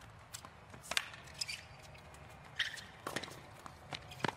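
Tennis ball struck back and forth in a rally on a hard court: a few sharp racket hits a second or two apart, with short squeaks between them.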